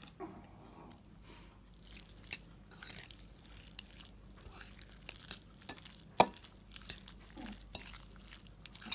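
A fork stirring a wet, chunky egg, cheese, sausage and cabbage filling in a bowl: soft squelching with scattered light clicks of the fork against the bowl, and one sharper clink about six seconds in.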